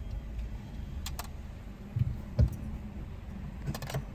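Car cabin with the engine idling low, and a few light clicks. Two short dull thumps about halfway through are the loudest sounds.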